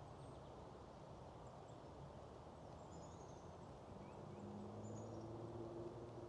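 Quiet outdoor ambience with a few faint, high, short bird chirps, and a faint low steady hum in the second half.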